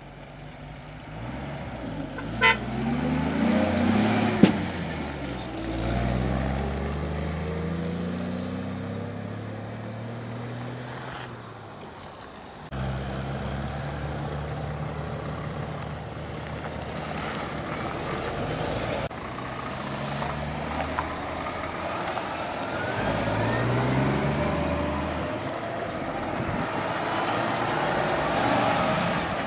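Lorry diesel engines pulling away and accelerating, rising in pitch through the gears: first a vintage Bedford lorry, then modern DAF and Renault tractor units. A short horn toot sounds about two and a half seconds in.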